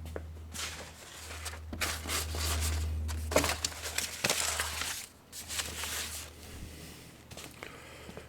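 Shuffling and rustling handling noises, irregular and loudest in the middle, over a steady low hum.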